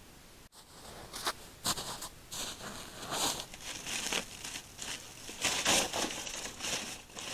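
Wrapper being crinkled and torn off a large ball of salt by hand, in a run of irregular crackly rustles starting about half a second in.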